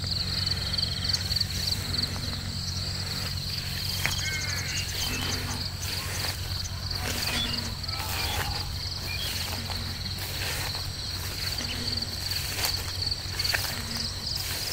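Steady high-pitched trill of field crickets, with short low calls repeating every second or two and a few brief chirps on top.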